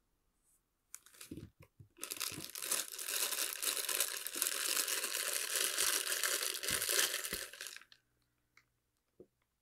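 Clear plastic bag crinkling loudly as hands work the figure's head out of it. It starts with a few crackles, runs dense for about six seconds, then stops abruptly, followed by a couple of faint clicks.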